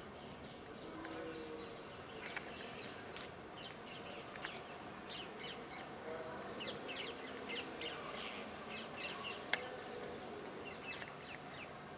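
Small birds chirping, many short high chirps in loose clusters, busiest in the second half. A single sharp click sounds about nine and a half seconds in.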